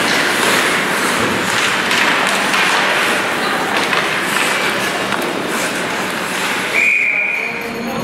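Ice hockey rink game sound: a steady wash of skates and sticks on the ice with spectators' voices. Near the end a referee's whistle gives one short steady blast, stopping play.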